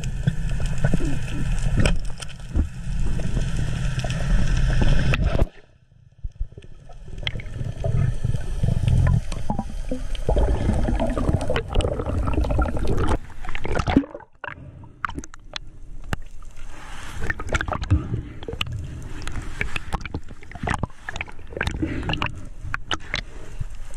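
Water noise heard underwater: a low rushing and gurgling with many scattered clicks and crackles. It drops away abruptly about five and a half seconds in and again around fourteen seconds.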